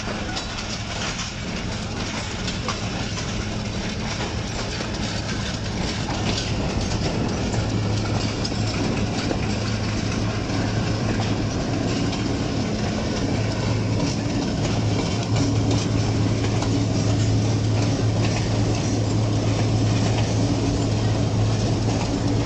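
PHA-20 diesel locomotive running close alongside with a steady low engine drone that grows louder as it draws level, over the rumble of train wheels on the rails.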